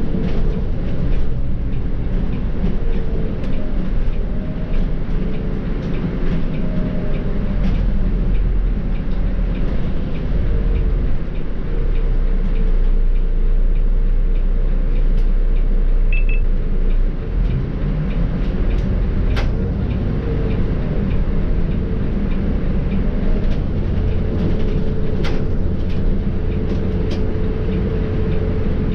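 Volvo B7R diesel bus on the move, its inline-six engine and ZF automatic gearbox making a steady low rumble with a thin, wavering whine. Scattered clicks and rattles run through it.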